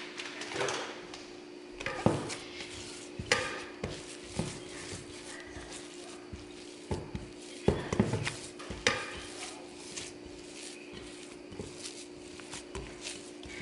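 Hands kneading soft arepa dough with grated cheese in a glass mixing bowl: irregular squishes of the dough and knocks of fingers against the glass, louder around two seconds in and again around eight seconds. A steady low hum underneath.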